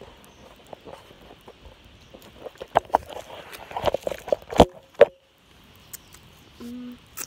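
Fingers handling and rubbing a phone right at its microphone: scattered knocks and clicks, the loudest about four and five seconds in, and the sound cuts out for a moment just after.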